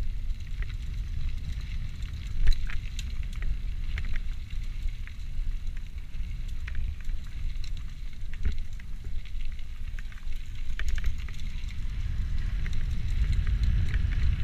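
E-mountain bike riding a dirt singletrail: tyres crackling over soil and small stones and the bike rattling with scattered clicks, over a low rumble of wind on the microphone. There is one sharper knock about two and a half seconds in.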